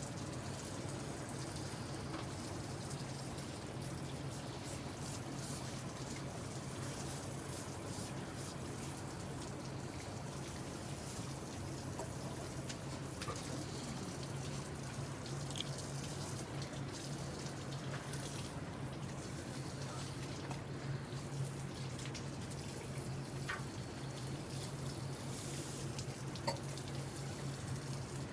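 Water running and trickling steadily, with a few faint drips, over a steady low hum.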